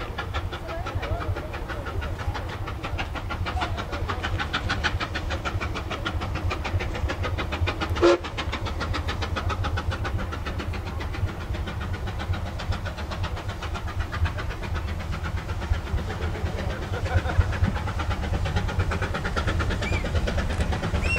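Steam locomotive working in the distance, its exhaust making rapid, even beats over a heavy low rumble. A single short sharp sound cuts in about eight seconds in.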